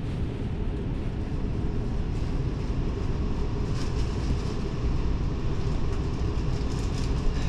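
Passenger train running along the track: a steady, loud low rumble, with a few faint high ticks about four seconds in and again near the end.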